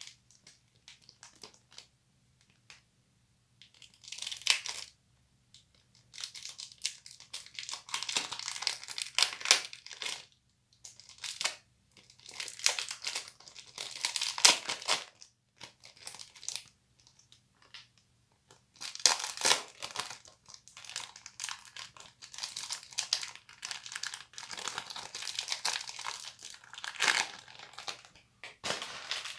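Plastic-wrapped Ivory bar soap pack crinkling and tearing as it is handled, in irregular stretches of a few seconds with short pauses between.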